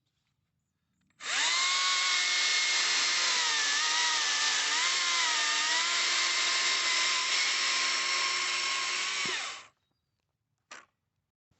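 Stihl cordless chainsaw running: a steady electric motor and chain whine that dips and recovers in pitch a few times, as under light load, then winds down and stops. A short click follows near the end.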